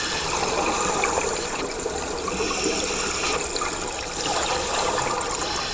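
Scuba breathing underwater: bubbling and rushing from a diver's regulator, swelling in about three surges.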